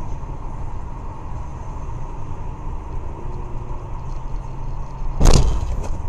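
Steady road and engine rumble inside a moving car, picked up by a dashcam, with one loud thump about five seconds in.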